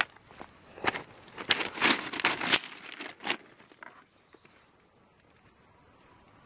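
A quick run of crunching clicks and rustles from handling at the track over railway ballast stones, densest in the first three seconds and stopping about three and a half seconds in.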